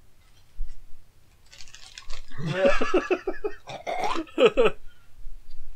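Hearty laughter: two bursts of quick, rapid ha-ha pulses, the first about two seconds in and the second just under four seconds in.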